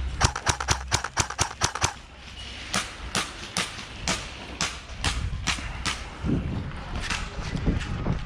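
Airsoft guns firing: a fast burst of about a dozen shots in the first two seconds, then single shots about two a second. Low thuds come in later, from about six seconds on.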